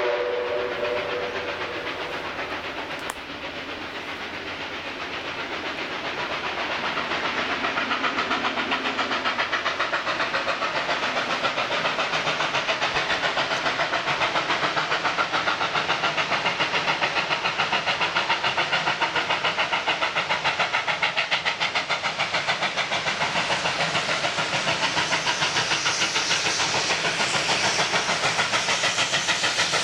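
Steam locomotive whistle dying away in the first second or two. Then the fast, even exhaust beats of 5917, a NSW 59 class 2-8-2 steam locomotive, working hard up a grade, growing steadily louder as it approaches.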